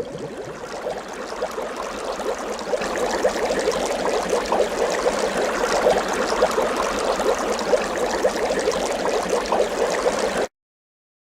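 Brook water flowing and babbling steadily, then cutting off abruptly near the end.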